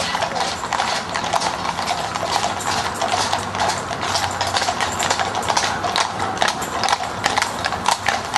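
Hooves of several carriage horses clip-clopping on a tarmac road, many quick, overlapping, irregular strikes as a horse-drawn hearse and carriage pass.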